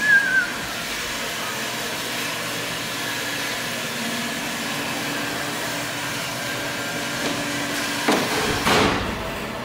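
Steady workshop background hum, with a brief high falling whine at the very start and two short, loud bursts of noise near the end.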